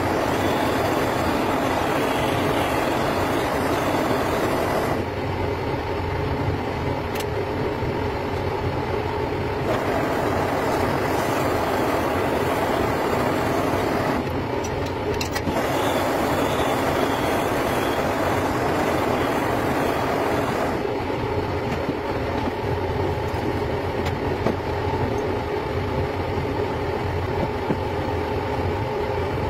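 Metal lathe running steadily, spinning a motorcycle cylinder block in its chuck while the bore is machined, with a few abrupt shifts in tone.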